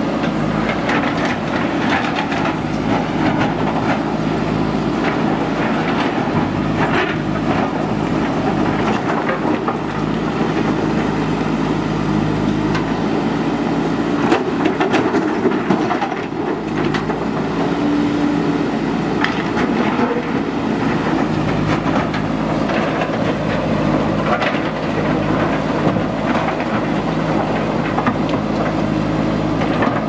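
JCB 3DX backhoe loader's diesel engine running steadily under load while the backhoe works, with rocks knocking and clattering now and then as stone is scooped and dumped.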